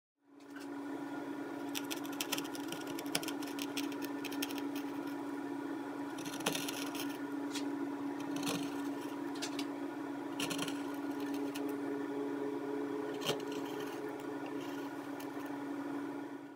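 Hand-pushed carving gouges paring mahogany while carving a shell, giving irregular sharp clicks and short scraping cuts. A steady electrical hum runs underneath.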